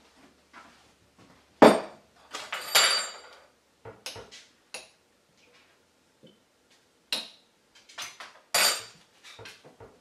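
Dishes and utensils clattering: a series of sharp clinks and knocks as kitchenware is handled and set down, the loudest about a second and a half in, with another burst of ringing clinks near the end.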